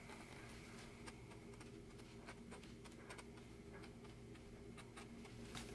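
Near silence: faint, irregular ticks and scratches of a metal dip pen nib drawing ink lines on sketchbook paper, over a low steady hum.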